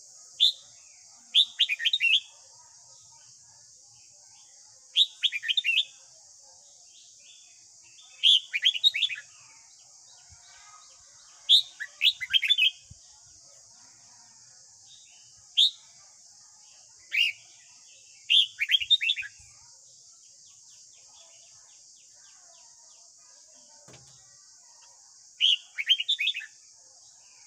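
Red-whiskered bulbul singing: short, bright phrases of a few quick notes, repeated every few seconds with a longer pause about two-thirds of the way through.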